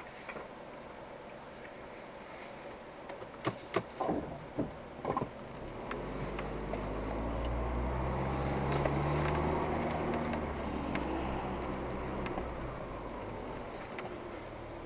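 A few sharp knocks and clicks, then an SUV engine pulling under load as a vehicle moves off on a dirt track. The engine rises to a peak a few seconds in, then eases back to a steadier run.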